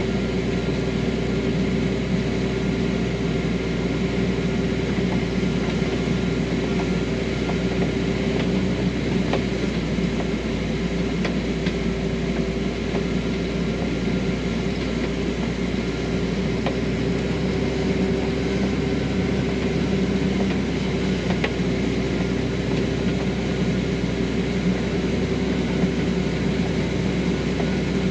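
Combine harvester running steadily while harvesting corn, a constant machine drone with a steady hum.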